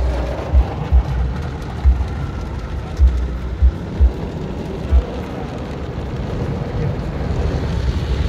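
Automatic car wash spraying water and foam over a car, heard from inside the cabin as a steady rain-like hiss and patter on the roof and windshield. Short dull thumps land every half second to second during the first five seconds or so.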